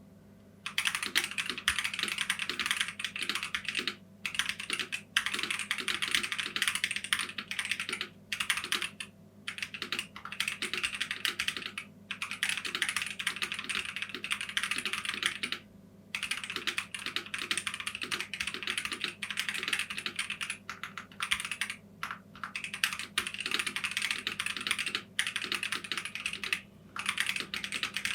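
Mechanical keyboard fitted with Gazzew Boba U4T tactile switches, typed on fast and continuously in runs of a few seconds broken by brief pauses.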